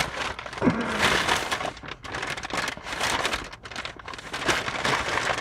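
Crinkling and rustling of a wet-wipe packet being torn open and handled, with a short falling squeak under a second in.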